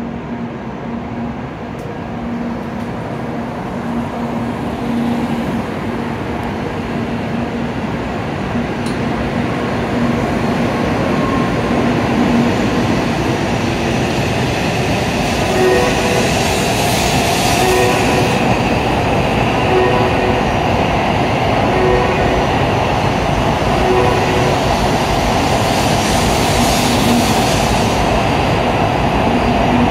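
An N700A Shinkansen train pulls out of the station and accelerates past the platform, its running noise growing steadily louder as the cars go by. There is a low steady hum at first, then higher tones and rushing noise as it picks up speed.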